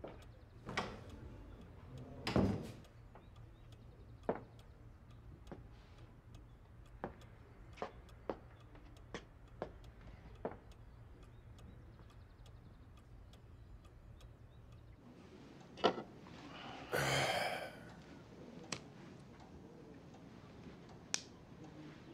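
A door shuts with a heavy knock about two seconds in, then a clock ticks slowly in a quiet room. Near the end comes a short hissing rush lasting about half a second.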